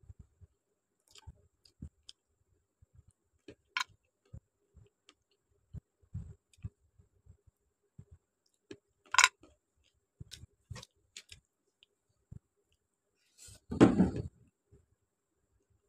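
Close-up eating sounds of chicken curry and rice eaten by hand: sparse chewing, wet mouth clicks and lip smacks, with one sharp smack about nine seconds in. Near the end, a louder, longer burst as the fingers mix rice and gravy on a steel plate.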